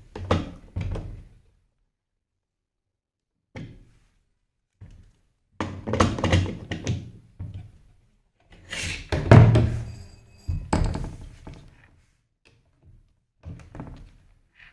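Handling and testing a shruti box reed: a series of wooden thunks and knocks, with short bursts of the G reed sounding. The reed still buzzes because its tongue is touching the reed frame.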